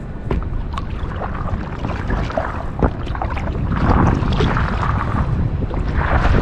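Wind buffeting the microphone over water splashing from paddle strokes on a lake, the splashing louder about four seconds in and near the end, with a few sharp knocks, the loudest about three seconds in.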